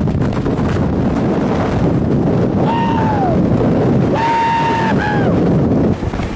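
Strong wind buffeting the microphone, with a person letting out high-pitched yells about halfway through: a short falling cry, then a longer held one that drops off at the end, and a brief third.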